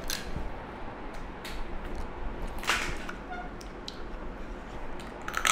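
Eating by hand from steel plates of rice and snails: small clicks of shells and fingers against the plates, a brief sucking or slurping noise about two and a half seconds in, and a sharper click near the end.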